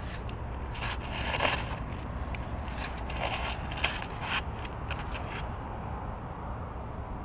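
Steady low rumble of wind on an action camera's built-in microphone, with scattered crackling scrapes between about one and five and a half seconds in.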